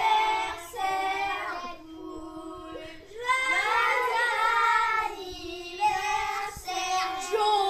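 A group of children singing together in high voices, holding long notes, with a brief lull a couple of seconds in.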